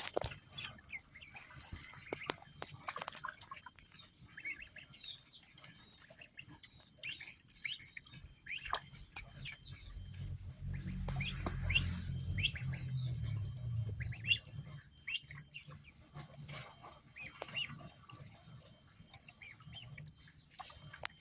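Ducklings peeping, with many short, high chirps and scattered clicks and knocks. A low hum swells up for a few seconds in the middle.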